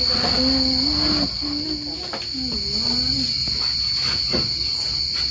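Crickets chirping in a steady high-pitched trill. Over it, for the first three seconds or so, a person's voice chants in long held notes that step up and down in pitch.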